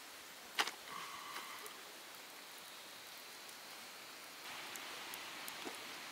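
Faint steady outdoor hiss, with one sharp click about half a second in and a brief high steady tone around the one-second mark; the hiss grows a little louder about four and a half seconds in.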